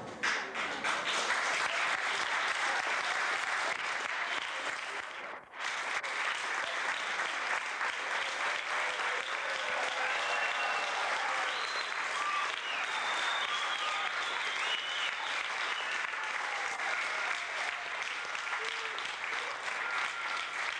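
Audience applauding, a steady sustained clapping that drops out briefly about five seconds in.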